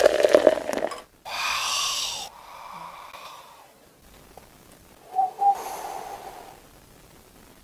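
Lemon soft drink being poured into a glass bottle, which stops about a second in. It is followed by a few seconds of breathy, airy sucking sounds as the drink is worked through a glass straw.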